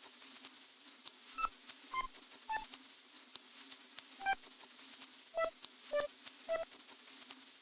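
Quiet, sparse electronic music: seven short, bright beep-like synth notes that mostly step down in pitch, over a steady low hum and faint hiss.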